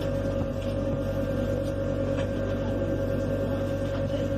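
Tram cabin running noise: a steady low drone with a constant high whine over it, unchanging throughout.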